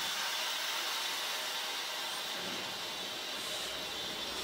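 Steady hiss inside a Tosaden streetcar's cab. A low rumble joins it about halfway through as the streetcar and a passing tram move alongside each other.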